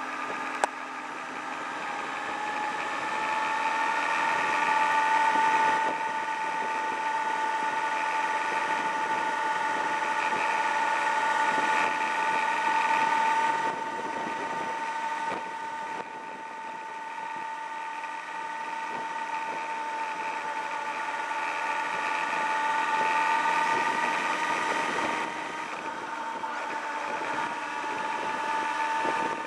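Sport motorcycle's engine running while the bike rides along at around 40 to 50 km/h, heard from the rider's position: a steady, fairly high engine note that eases off and picks up again a few times as the throttle changes.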